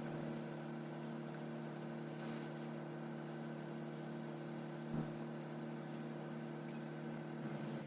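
A machine running with a steady hum of several even tones, with a single knock about five seconds in; the hum drops slightly in pitch near the end.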